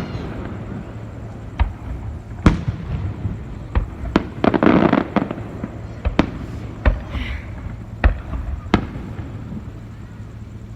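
Aerial fireworks shells going off: about half a dozen sharp booms at irregular intervals, with a short hissing crackle about halfway through.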